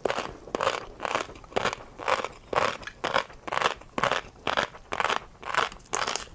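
Close-miked chewing of a mouthful of tobiko (flying fish roe) with crunchy seafood topping: steady, rhythmic crunching, about two bites a second.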